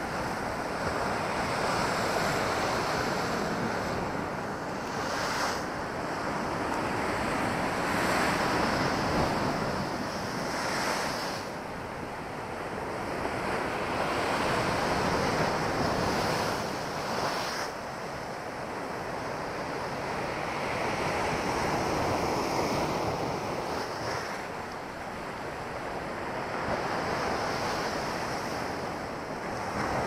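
Storm waves breaking against a concrete seawall and washing over the embankment: a continuous rushing surf that swells and ebbs with each wave, roughly every six seconds.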